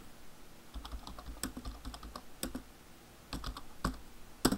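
Computer keyboard being typed on: irregular keystrokes in two short runs with a brief pause between them, the loudest keystroke near the end.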